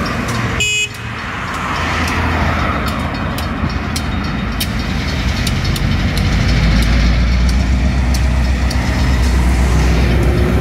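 Road traffic noise: vehicles running past, with a deep engine rumble that grows louder about six seconds in.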